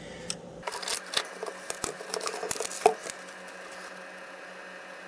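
Handling sounds: rustling and light clicks as a laptop video card is handled and wiped with a cloth shop towel. They stop after about three seconds, leaving a faint steady hum.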